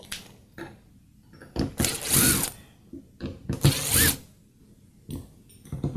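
A cordless driver spinning screws out of a plastic drill housing in two short runs, the second ending in a rising whine; small clicks of handling come between them.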